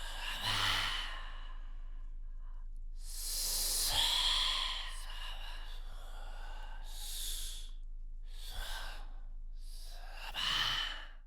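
A person imitating ocean waves with the voice alone: breathy hissing swells that rise and fall, about five surges with short pauses between them, the longest running several seconds near the middle.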